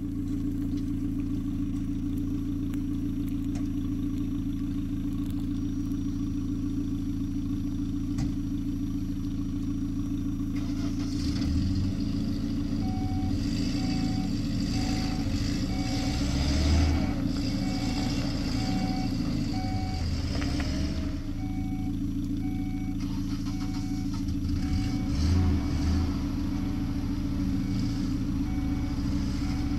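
Pickup truck engines running: a steady low engine hum throughout, with an engine revving harder twice, about halfway and again a few seconds before the end, as a pickup works up a muddy track. From a little under halfway, a vehicle warning beep repeats steadily about every three quarters of a second.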